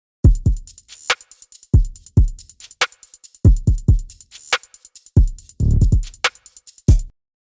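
Background music: a drum-machine beat with deep booming kick drums, snare hits and fast hi-hat ticks, cutting off suddenly near the end.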